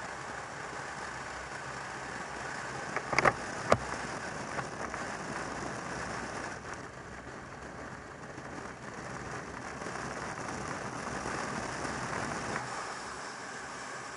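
Motorcycle riding at a steady cruise: wind rushing over the microphone together with the engine running evenly, with a few sharp knocks about three seconds in.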